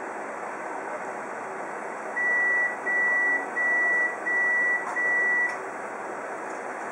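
Konica Minolta bizhub colour copier running with a steady mechanical whirr while it processes a copy. About two seconds in, five long, evenly spaced high beeps sound.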